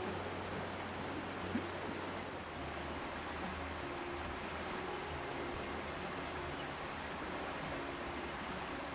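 Steady rush of water from rain and the flowing river. A single small click comes about a second and a half in, and a faint run of short, high bird chirps comes about four seconds in.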